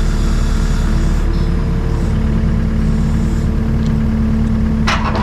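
Takeuchi TB285 compact excavator's diesel engine running at a steady pitch, with a brief clatter about five seconds in as the machine works the rip rap rock.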